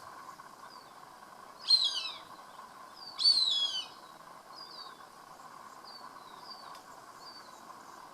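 Cooper's hawk giving two loud whining calls about a second and a half apart, each falling in pitch.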